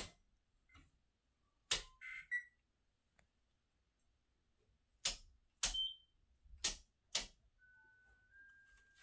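Six sharp clicks at irregular intervals, the loudest at the very start, followed by a faint steady high tone over the last second or so.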